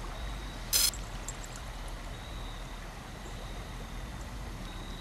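Steady low outdoor background noise with a faint high thin tone, broken just under a second in by one short, loud burst of noise.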